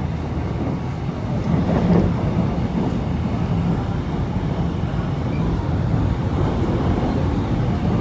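Steady low rumble of a train running at speed, heard from inside the carriage.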